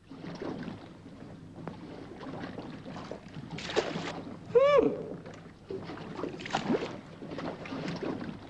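A wooden oar dipping and splashing in water as a man works a small rowboat, with irregular swishes and sloshes. About halfway through comes a brief squeal that rises and falls in pitch.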